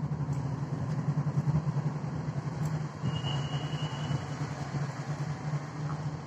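A motor running with a steady low hum, which dies away near the end.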